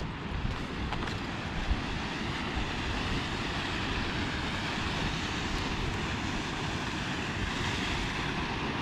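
Steady rush of a mountain waterfall cascading over rock, growing slightly louder, with wind rumbling on the microphone underneath.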